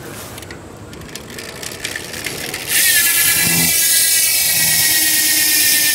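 Academy alloy cassette hub on a BMX rear wheel freewheeling, its pawls ratcheting in a loud, even buzz that starts about three seconds in and drops slightly in pitch.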